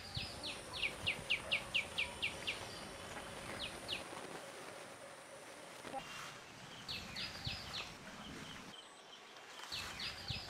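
A bird calling in runs of short, high, downward-sweeping notes, about four a second. A run of about ten notes comes first, then shorter runs of two to five. A thin steady high tone and faint outdoor background sound lie under them.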